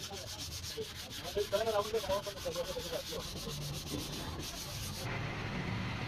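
Fast, even scrubbing on a diesel truck engine's cylinder head as its face is cleaned, stopping abruptly about five seconds in.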